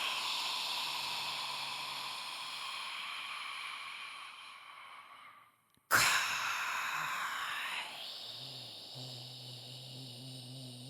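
Scary, breathy whispering sound effect: two long airy whispers, each starting suddenly and slowly fading away, the second beginning about halfway through with a faint low hum under its tail.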